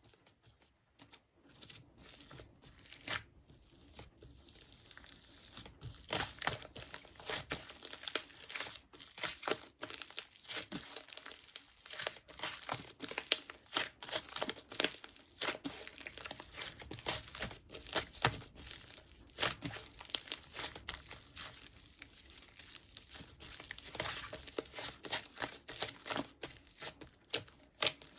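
Thin wrapping material crinkling and rustling as it is handled, a dense run of short crackles that starts sparse and becomes continuous about six seconds in.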